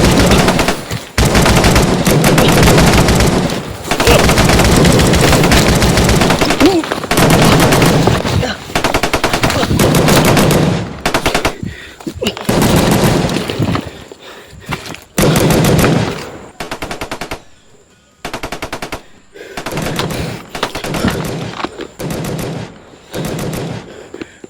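Long bursts of rapid automatic gunfire, almost unbroken for the first ten seconds or so, then breaking into shorter bursts with pauses between them.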